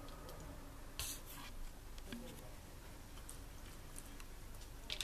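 Faint soft rubbing and dabbing of a silicone pastry brush spreading egg yolk over unbaked dough rolls, with a few light clicks.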